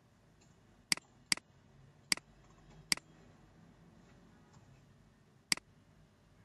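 Computer mouse button clicked five times, each a short sharp click: two close together about a second in, two more spaced about a second apart after that, and a last one near the end.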